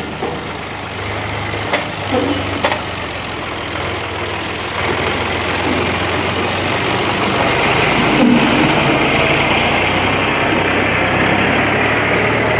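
Tractor engine running steadily, with two sharp clicks about two and three seconds in.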